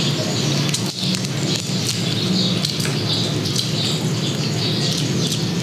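Close-miked eating sounds: crackling and crunching of crispy fried pork skin being torn by hand and chewed, many small sharp crackles over a steady hiss.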